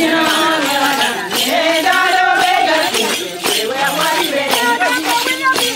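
A group of women singing together, with jingling percussion shaken in a steady beat.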